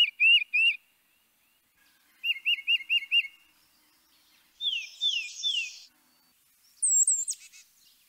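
Tufted titmouse singing its whistled "peter-peter-peter" song: short, loud runs of quick repeated notes, a few to a run, with pauses between. A few higher, thinner notes come about seven seconds in.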